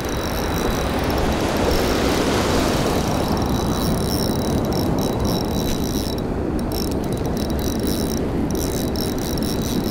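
Turbulent river water rushing and churning in a steady, continuous wash.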